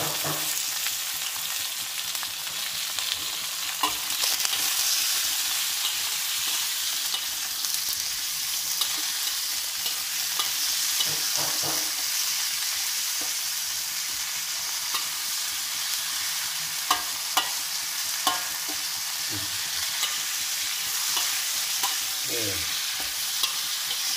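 Beef, cauliflower and carrot sizzling in hot oil in a metal wok as a slotted metal spatula stirs and scrapes them, with a steady frying hiss and occasional sharp clicks of the spatula against the wok.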